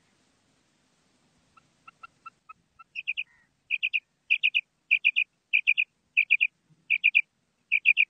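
Female common quail calling: a few soft short notes, then from about three seconds in, loud clusters of two or three quick, sharp high notes repeated roughly every two-thirds of a second.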